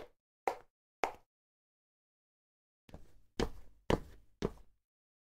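Cartoon footstep sound effects: light, quick steps in the first second, then after a pause four heavier, deeper steps about half a second apart.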